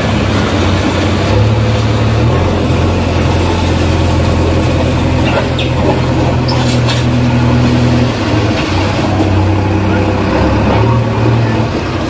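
Backhoe loader's diesel engine running under load as its front bucket pushes and spreads gravel, the engine note shifting a few times as the load changes, with a few light clanks partway through.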